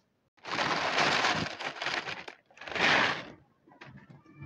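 Plastic bag crinkling and rustling in two bursts: a long one starting about half a second in, then a shorter one about three seconds in.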